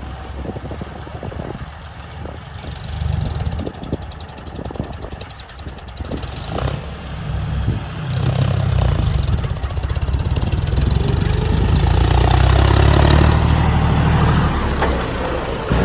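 Heavy diesel engine running with a deep, steady drone. It gets louder about halfway through and stays loud.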